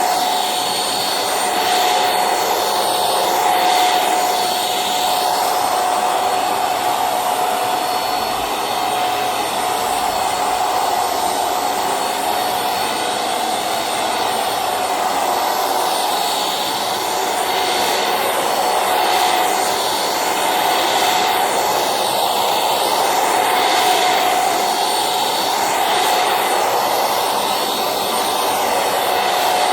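Silvercrest anti-dust-mite handheld vacuum cleaner running steadily while it is worked over a mattress, its motor giving a loud whine that swells and eases slightly.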